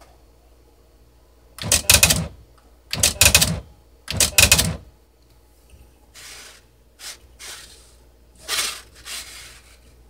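Smith Corona PWP 3 word processor's daisy-wheel printer printing text: three loud bursts of rapid strikes, each lasting well under a second, then three quieter, shorter bursts.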